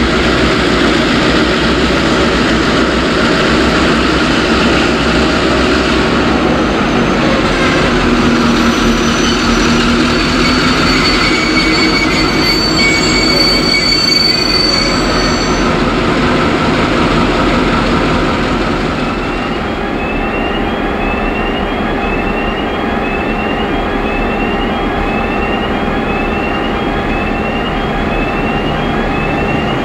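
Vintage B-class diesel-electric locomotive hauling a freight train slowly through a station, engine running with a heavy rumble and the wheels squealing on the rails about midway. Later the train noise eases to a steadier hum, with short rising chirps repeating about once a second.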